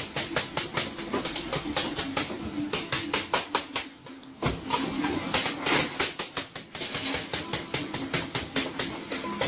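Rapid, irregular clicking and tapping of dough cutters striking a steel worktable as several bakers chop dough into portions, several hits a second, easing off briefly about four seconds in.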